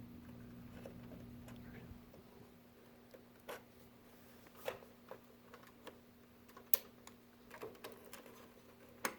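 Faint, scattered clicks and taps of a DDR4 memory stick being handled and pressed into a motherboard's memory slot, the sharpest click near the end.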